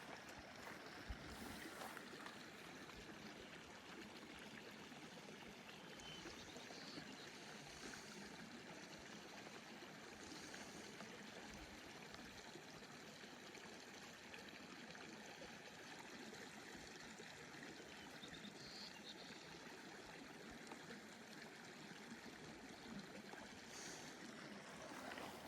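Small mountain creek flowing and trickling, a faint, steady wash of water.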